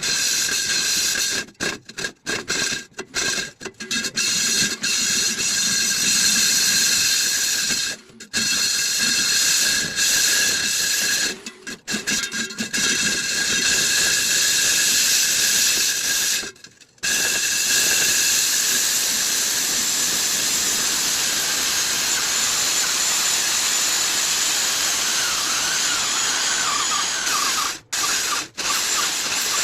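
Concrete core drill boring into a concrete wall: a steady high motor whine over a loud grinding hiss, cutting out abruptly several times for a moment. Near the end the pitch of the whine wavers as the bit takes load.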